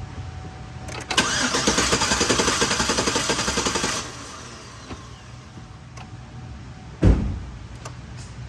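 Chevrolet 5.3L V8 cranking on the starter with a spark plug out for a compression test, about three seconds of even, rhythmic turning-over starting about a second in, without firing. A single loud thump follows a few seconds later.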